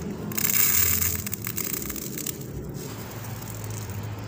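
Dry, uncooked long-grain rice trickling from fingers into a plastic basin: a hissing patter of falling grains for about two and a half seconds, over a steady low hum.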